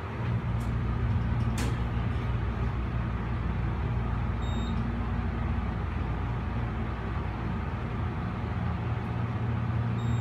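Elevator machinery running with a steady low hum. A sharp click comes about a second and a half in, and a brief high beep about four and a half seconds in.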